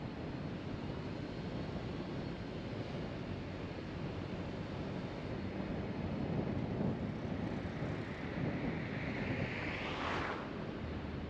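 Steady road and wind noise from a car being driven, an even rushing hiss. Near the end a whoosh builds, peaks sharply and falls away quickly.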